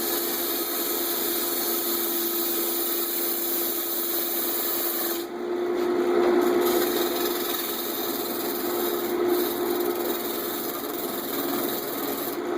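Wood lathe running with a steady hum while a bowl gouge scrapes across the face of a spinning MDF disc, truing it up to remove run-out. The cut pauses briefly about five seconds in, then resumes a little louder.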